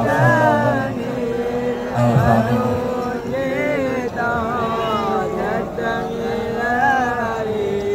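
Devotional sholawat singing: one voice carrying an ornamented, wavering melody over steady held accompanying notes.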